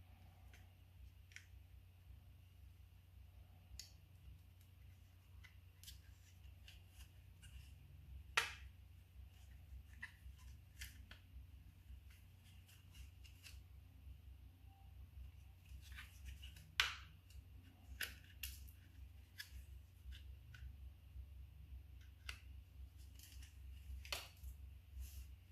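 Sparse sharp clicks and light taps from small parts of a power mirror's glass-positioning actuator being handled and worked on, two of them clearly louder, about eight and seventeen seconds in, over a low steady hum.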